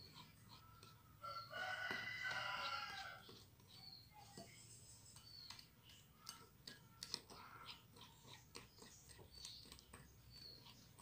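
A rooster crows once, starting about a second in and lasting about two seconds. A small wire whisk clicks and scrapes against a glass bowl, beating runny chocolate cake batter.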